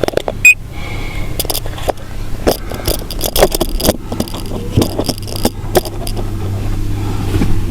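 Handling noise of clicks, knocks and rattles with keys jangling, including a sharp knock about half a second in. A low steady hum comes up near the end.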